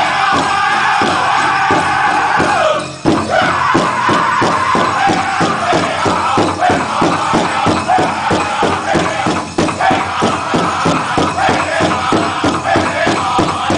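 Powwow drum group singing a chicken dance contest song: high-pitched voices over a quick, steady drumbeat of about three to four strokes a second. There is a short break in the singing about three seconds in.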